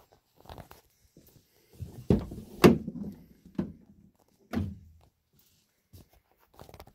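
A few dull knocks and clunks, the loudest a sharp click about two and a half seconds in, followed by single knocks about one and two seconds later.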